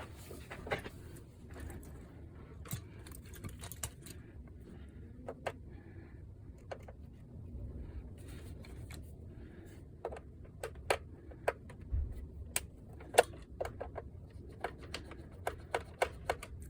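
Scattered light plastic clicks and knocks from a PlayStation 5's casing and side panels being handled. They come irregularly and grow more frequent in the second half.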